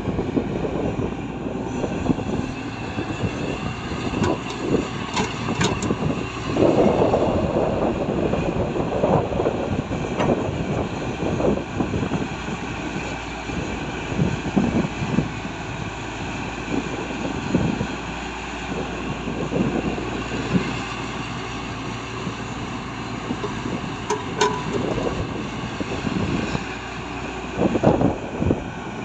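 Heavy excavator's diesel engine running steadily, with irregular knocks and clunks throughout and a louder stretch about seven seconds in.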